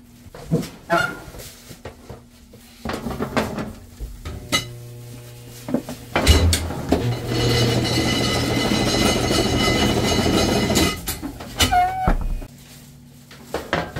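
Metal baking trays clanking and being slid into a stainless deck oven, with a long loud scrape for several seconds midway, then the oven door pulled shut with a brief squeal and thud near the end.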